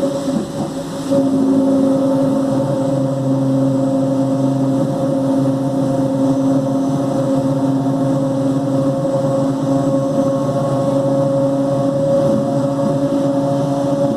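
Mafersa-built CPTM electric train car 1739 (1701–1740 series) droning very loudly: a steady hum made of several held tones that grows louder about a second in and then holds.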